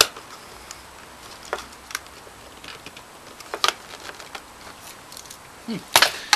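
Scattered small clicks and taps of a screwdriver and tools against the plastic and metal of an early-1980s Panasonic video camera being taken apart. Near the end comes a louder clatter of clicks as a part of the casing comes free.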